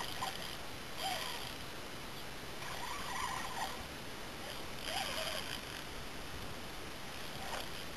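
Steady wash of water and wind around a kayak being towed by a hooked redfish, with a few faint short chirps every couple of seconds.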